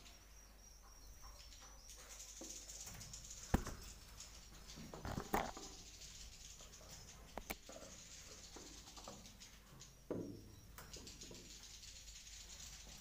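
Swiftlets twittering in a continuous high chatter, with a few sharp knocks and scrapes; the loudest knock comes about three and a half seconds in and a cluster follows around five seconds.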